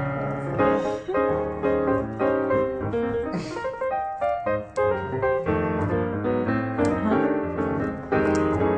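Background music led by piano or electric piano, a busy run of notes over a steady low bass line.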